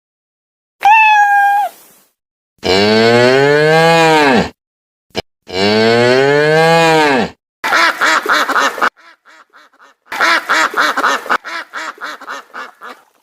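A cat meows once, then a cow gives two long moos that rise and fall in pitch, then ducks quack in quick runs.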